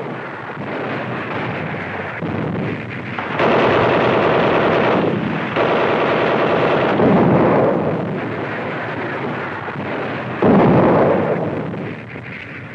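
Gunfire and explosions on a 1940s newsreel soundtrack: a steady battle din with loud stretches of rapid gunfire from about three and a half seconds in, then a sudden loud blast about ten and a half seconds in.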